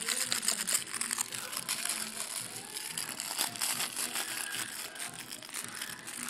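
Continuous crinkling and rustling close to the microphone, made of many small crackles.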